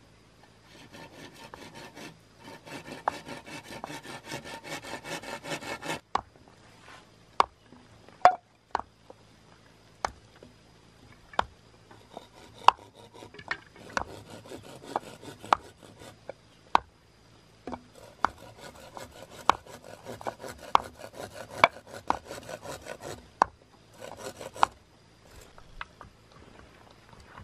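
Green bamboo being cut and shaped with hand tools: runs of quick, even scraping or sawing strokes, with sharp single knocks on the wood between them.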